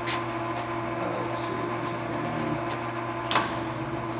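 Hardinge HLV-H toolroom lathe running with the carriage on threading feed, moving away from the chuck: a steady mechanical hum, with two short clicks, one at the start and one about three seconds in.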